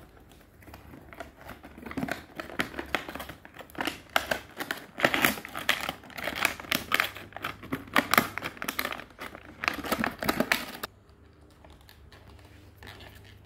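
Plastic packaging being handled, with dense, irregular crinkling and crackling that stops suddenly about eleven seconds in.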